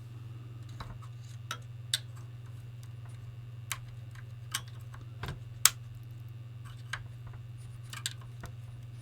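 Irregular small clicks and taps of a tool working at the Commodore VIC-20's jammed power switch and its plastic mounting, about nine in all with the sharpest a little over halfway through, over a steady low hum.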